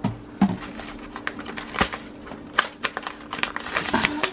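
Irregular clicks and light clatter of plastic sprinkle jars and containers being moved about on a shelf while rummaging, over a faint steady hum.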